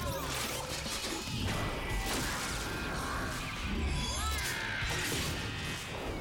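Cartoon battle sound effects over dramatic background music: repeated whooshes and crashing impacts with low thumps, about one a second.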